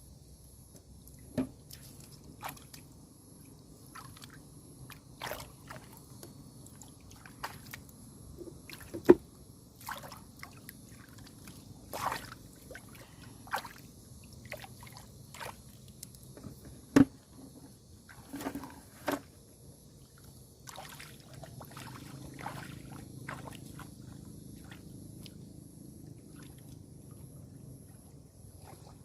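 Water splashing and sloshing in irregular bursts, with scattered drips and a couple of sharper, louder splashes or knocks about nine and seventeen seconds in.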